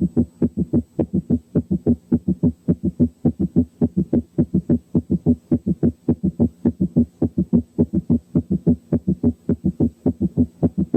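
Heart sounds recorded through a stethoscope's bell placed at the cardiac apex: a fast, regular run of short beats, about four to five a second.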